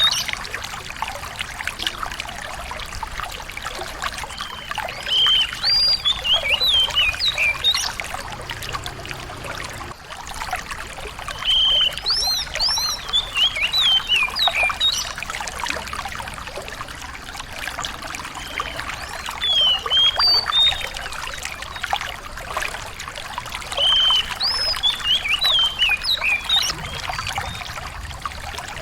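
A small songbird singing short bursts of quick, sweeping high notes, one phrase every five or six seconds, over a steady sound of running water.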